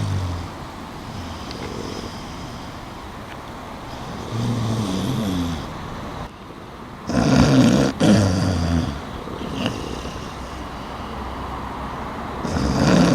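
Snoring: a sleeper's drawn-out snores, each about a second and a half long, coming every few seconds, over a steady background hum of traffic.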